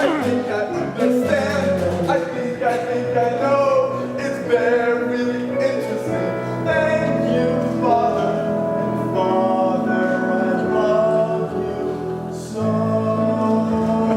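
Live theatre pit music playing the closing bars of a show tune, with singing, in sustained chords that change every second or two. A final chord comes in about a second and a half before the end and is held.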